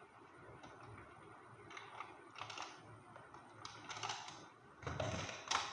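Faint, irregular light clicks and rustles of a small plastic RC crawler truck and its parts being handled, with a louder clatter near the end.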